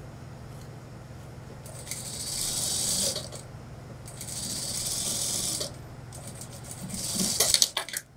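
Industrial sewing machine stitching fabric in three short runs of about a second or more each, over a steady low motor hum, the last run ending in a few sharp clicks as the machine stops.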